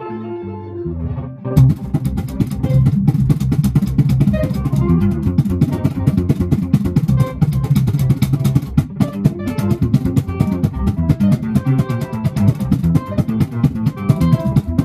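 Upright double bass played in a fast, steady rhythm: low plucked notes with sharp percussive clicks, the clicks starting about a second and a half in.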